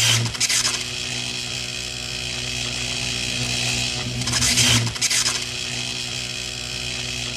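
Steady electrical buzz with a strong mains hum and a hiss above it. It grows louder and crackles briefly near the start and again about four and a half seconds in.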